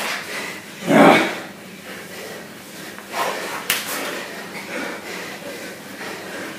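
Two men grappling on a rubber gym floor: bodies, clothing and trainers scuffing and shifting. There is a loud burst of scuffling about a second in and one sharp knock a little before four seconds in.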